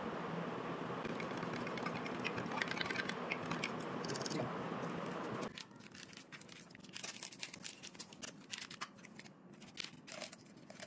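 A steady hiss with faint crackling that cuts off abruptly about five and a half seconds in, followed by crinkly plastic biscuit wrappers rustling and tapping as packets are dropped into a plastic blender jar.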